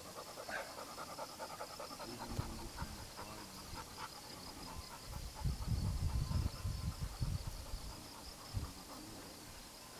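A person panting hard, out of breath from a long uphill mountain-bike climb. A faint steady high insect trill runs behind, and a few seconds of low rumble come near the middle.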